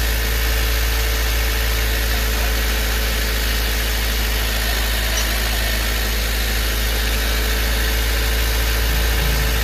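Honda Civic engine running steadily at a raised speed of about 2500 rpm, held there for the charging system's unloaded test.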